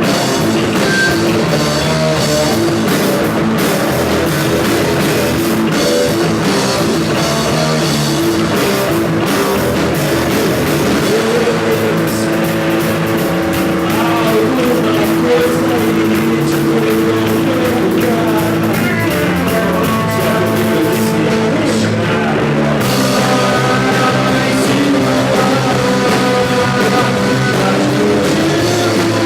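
Rock band playing live: guitars and bass holding sustained notes over a drum kit. The cymbals and drums drop out about three-quarters of the way through, leaving the guitars ringing on.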